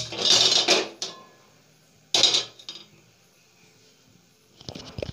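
A nonstick kadai handled on a gas stove: two bursts of scraping noise in the first half, then a short clatter of knocks near the end.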